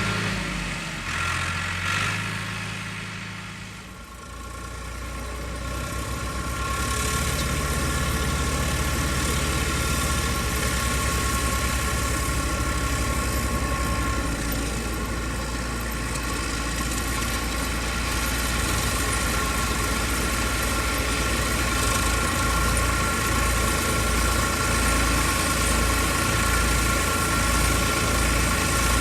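Farm tractor engine running steadily, with a steady high whine of machinery over it. The sound fades to a low point about four seconds in, then builds back up and holds steady.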